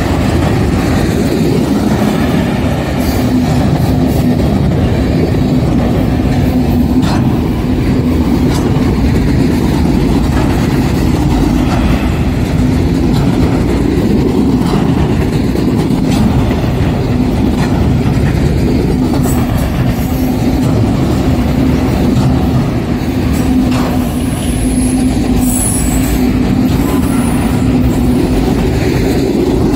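Freight train cars rolling past at close range: a steady rumble of steel wheels on rail, with scattered clanks as the wheels pass. A few brief high wheel squeals come near the end.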